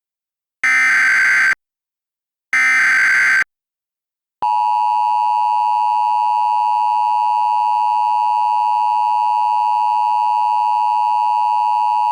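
Emergency Alert System signal: two short bursts of the screechy digital SAME header data tones, about a second apart, then the steady EAS attention tone from about four seconds in.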